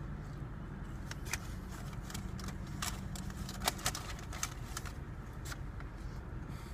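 Eating a fish sandwich: scattered crisp clicks and crinkles of biting, chewing and handling the paper wrapper, the sharpest about halfway through, over a steady low hum.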